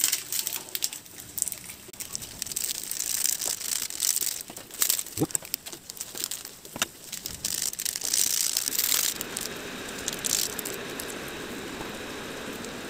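Plastic seasoning sachets crinkling, tearing open and being squeezed out, with irregular clicks and rustles. From about nine seconds in, a steady hiss takes over.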